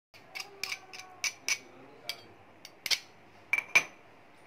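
Steel pestle clinking and tapping against a steel mortar holding dry, freshly pounded spice powder: about eight sharp, uneven metallic clinks, the last two ringing briefly near the end.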